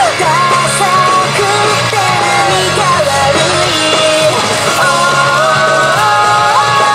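A recorded song with a sung melody plays loudly and without a break.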